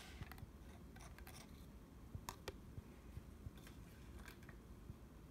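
Near silence with a few faint, sharp clicks scattered through it.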